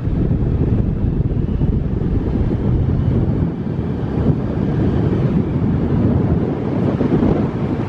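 Wind buffeting the microphone over the low rumble of a car driving along.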